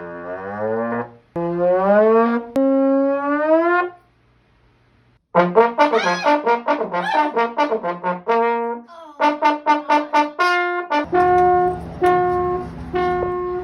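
Trombone-like brass notes: a few long notes that slide in pitch, a pause of about a second, then quick runs of short notes, ending with one note repeated several times.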